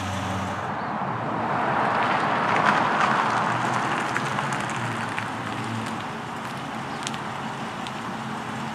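2014 Dodge Challenger R/T's 5.7-litre Hemi V8 running at low speed as the car drives slowly up the street and turns in, with tyre and road noise, loudest about two to three seconds in.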